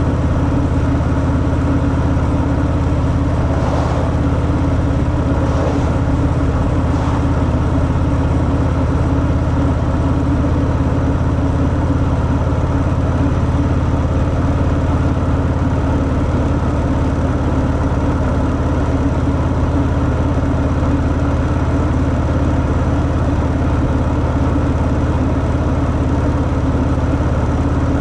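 Harley-Davidson Fat Boy's 45-degree V-twin running through its stock exhaust, holding one steady engine speed with no revving.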